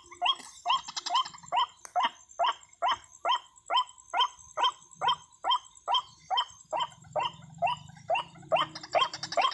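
White-breasted waterhen (ruak-ruak) call: a rapid, even series of short, sharply rising notes, about two and a half a second.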